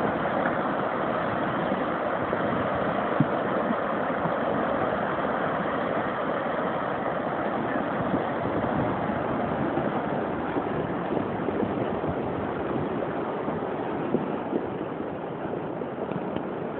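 Muddy floodwater torrent after rain rushing down a stony channel, a steady loud rush of churning water that gets slightly quieter toward the end.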